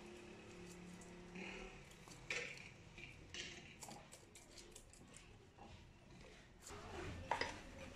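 Faint, irregular metal scrapes and clicks of a chainsaw chain being sharpened with a hand file and pulled along the bar by hand, with a few short rasping strokes.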